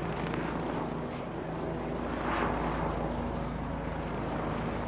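Helicopter flying overhead: a steady drone of rotor and engine with a continuous low hum.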